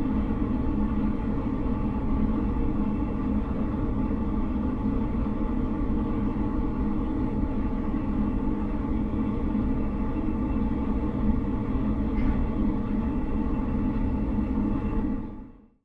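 Scheppach DP18 Vario drill press running steadily while it bores into a plywood block. The sound fades out near the end.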